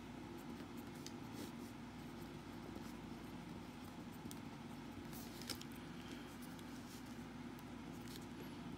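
Pen writing on paper: faint scratches and light taps of the tip as figures are written, over a steady low hum.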